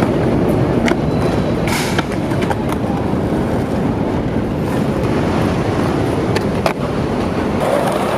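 Skateboard wheels rolling on concrete in a steady rumble, broken by a few sharp clacks of the board and trucks striking the ground.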